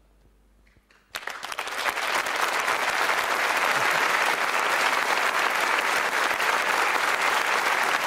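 Studio audience applauding. It breaks in suddenly after about a second of near silence, swells over the next second and then goes on steadily, extra strong.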